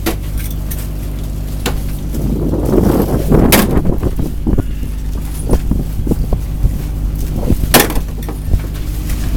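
Boat engine running steadily with a low hum, over which come a few sharp knocks and clacks: one right at the start, one about three and a half seconds in, and the loudest near the end.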